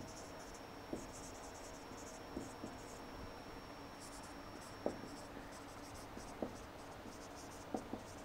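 Marker writing on a whiteboard: faint, short scratchy strokes that come and go, with a few light knocks between them.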